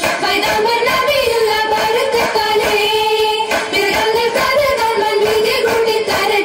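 A female voice singing an oppana song, a Mappila song melody with long held notes that bend gently in pitch.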